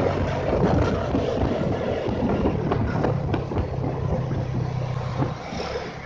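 Motorcycle engine running at a steady cruise with wind noise on the microphone. Passing traffic mixes in.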